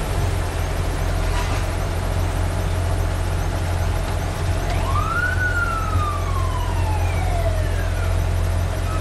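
A fire truck's engine drones low and steady while a fire truck siren winds up once about five seconds in, then slowly winds back down over about three seconds.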